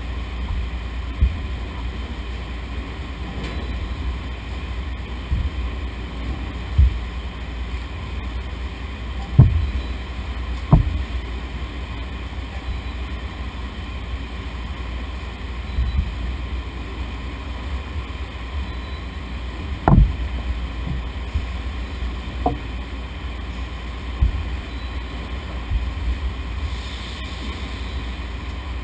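Steady low rumble of running potato-washing plant machinery, with several sharp knocks scattered through, the loudest about nine, eleven and twenty seconds in.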